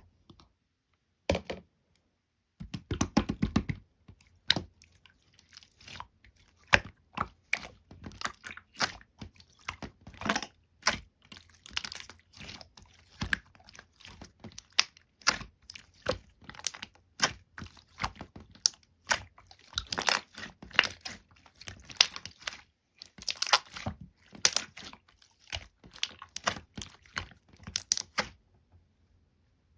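Jelly-like slime being squeezed, stretched and folded by hand, making a steady stream of sticky clicks, pops and crackles, with a quick flurry of clicks about three seconds in.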